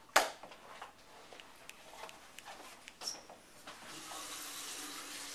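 Camera handling noise: a sharp knock just after the start, then light rubbing and small clicks as the camera is moved about. Near the end a steady hiss sets in and grows.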